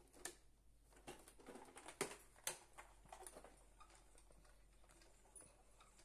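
Near silence with a few faint sharp clicks and light knocks from handling, mostly in the first three seconds, then only a low steady room hum.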